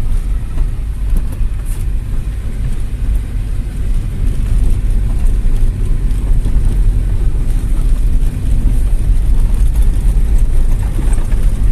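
Volkswagen Gol driving slowly along a bumpy dirt road: a steady low rumble of engine and road noise, a little louder after the first few seconds.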